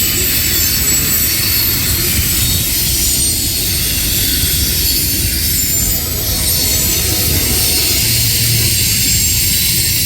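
A train passing close by: a steady rumble of wheels on rail with a loud, even hiss above it.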